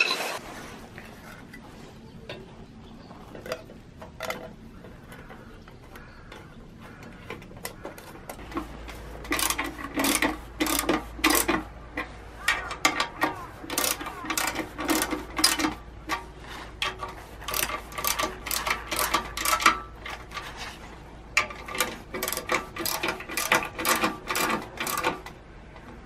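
Metal clicking and tapping from a small socket driver tightening the nuts on a switch panel. The clicks are sparse at first and come in quick, irregular runs from about nine seconds in.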